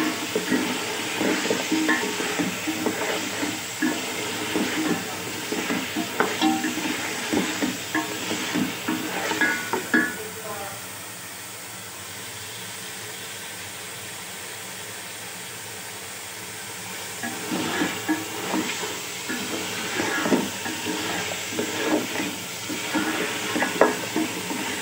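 Beef pieces sizzling in hot oil in an aluminium pot while a wooden spoon stirs and scrapes them, with irregular knocks against the pot: the meat being browned (bhuna). The stirring stops for several seconds in the middle, leaving only the steady sizzle, then starts again.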